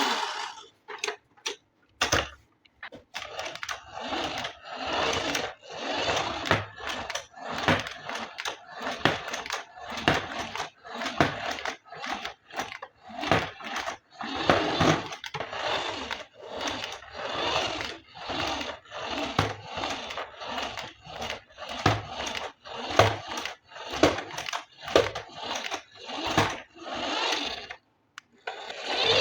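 Plastic packaging and toy parts being handled during an unboxing: irregular crinkling, rustling and clicking, with a few short pauses.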